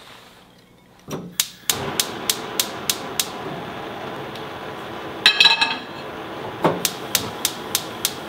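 Gas range burner being lit: the igniter clicks rapidly, about three clicks a second, and the flame catches with a steady hiss. About five seconds in a metal pan clatters onto the grate, then the igniter clicks again as a second burner is lit.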